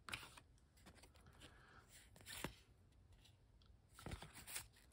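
Faint rustle and clicks of a stack of baseball cards being handled, the cards sliding and tapping against one another in the fingers, with brief slightly louder scrapes about two and a half seconds and four seconds in.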